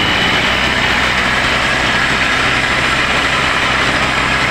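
Engine of a self-propelled coconut husk shredder (cocopeat maker) running steadily under load, driving the shredder as husks are fed in.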